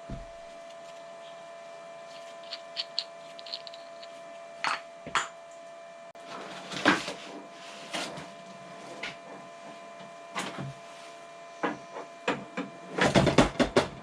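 Steady hum of a battery charger's internal cooling fan. Over it come scattered knocks and clicks of parts being handled, with a dense burst of clattering near the end.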